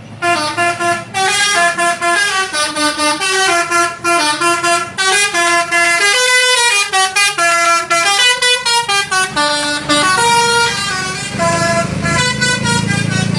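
Basuri musical horn on a tour bus (the 'telolet' horn) playing a fast melody, note after note in quick steps. It starts suddenly and runs loud throughout, with a low rumble growing under it near the end.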